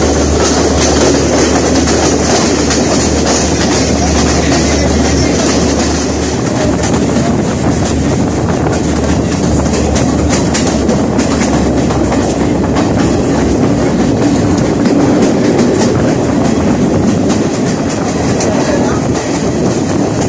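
Passenger train carriage running along the track, heard from an open window: a steady rumble of wheels on the rails with clickety-clack. A stretch of sharper, denser clicks comes about halfway through.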